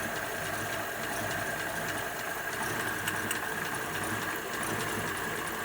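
1941 Ford pickup's flathead V8 idling steadily, running a bit happier now that the flooding carburettor has been cleaned out.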